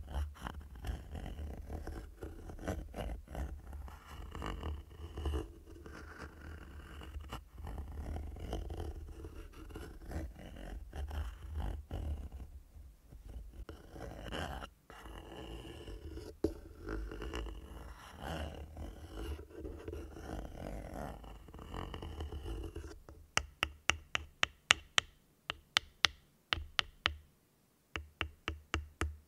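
A handheld black tool scraping and rubbing across the mesh grille of a Rode NT-USB Mini microphone, heard close up with low rumbling handling noise. About 23 seconds in it changes to sharp taps on the grille, about three a second, in two runs.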